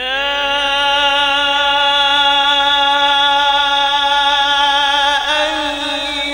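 A male qari reciting the Quran in the melodic tajweed style through a microphone: his voice slides up into one long held, slightly wavering note, then moves to a new pitch with a turn of ornament about five seconds in.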